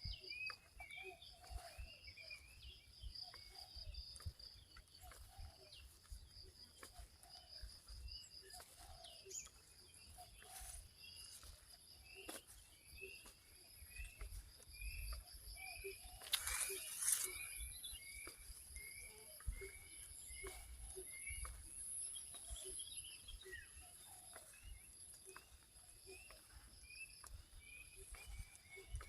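Rural chorus of birds and insects: a short call repeating roughly twice a second over a steady high insect trill, with other scattered calls. A brief rustling noise stands out about two-thirds of the way through.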